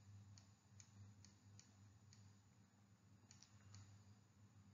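Near silence: a low steady hum with about ten faint, irregularly spaced clicks, a stylus tapping on a writing tablet as an equation is handwritten.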